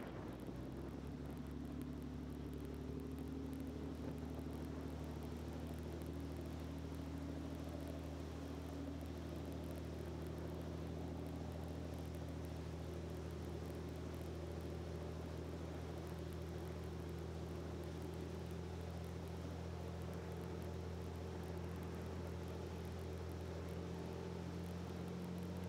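Engine of a rigid inflatable boat running steadily while the boat is under way, a constant low drone that holds one pitch.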